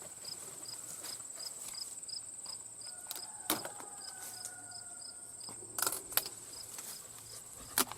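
Insects trilling in the grass: a steady high-pitched trill with another insect chirping about three to four times a second, and a few sharp clicks over it.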